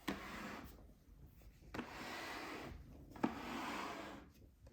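Hands working on a portable typewriter's ribbon mechanism: three stretches of rubbing and scraping, each about a second long and each starting with a small click.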